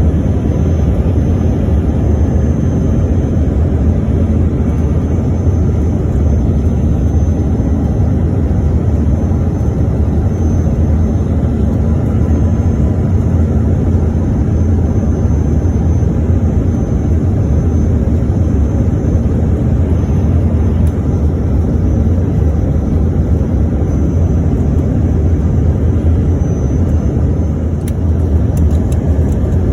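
Steady rumble of engines and rushing air heard from inside the cabin of a small commercial airliner, even in level, with no rise or fall.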